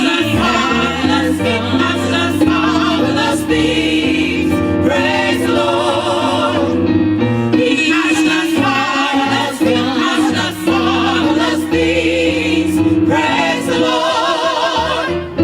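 Gospel choir singing live in full voice over instrumental accompaniment, with a bass line moving in held low notes.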